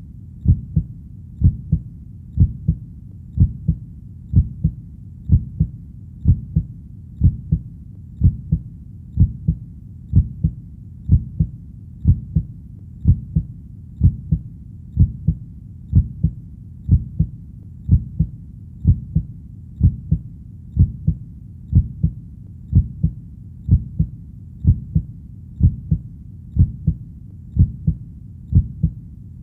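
Heartbeat: a steady, even double thump (lub-dub) about once a second, low in pitch, repeating without change.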